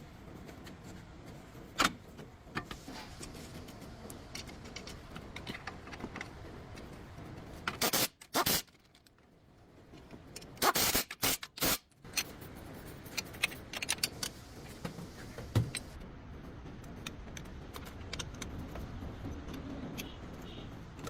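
Metal tools and parts clinking and scraping in irregular clicks, with louder clusters of clanks about eight and eleven seconds in.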